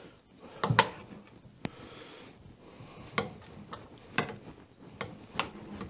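Knife and fork clicking and scraping against a plate while a cooked bone-in ribeye is cut away from its bone: a handful of sharp taps a second or so apart over faint scraping.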